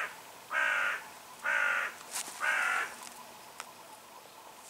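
A crow cawing: a run of harsh calls about a second apart, three whole calls after the tail of one at the start, stopping about three seconds in.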